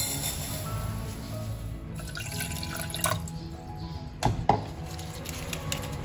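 Soft background music over small liquid sounds in a stainless steel saucepan, with two sharp clinks about four seconds in.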